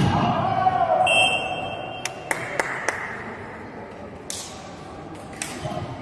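Volleyball play in an echoing sports hall: a string of sharp ball smacks, several of them close together, with some voices from players.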